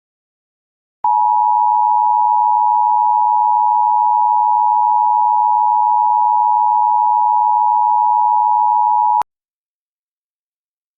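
Emergency Alert System attention signal: a steady two-tone alert tone (853 and 960 Hz together). It starts with a click about a second in, holds for about eight seconds, and cuts off suddenly.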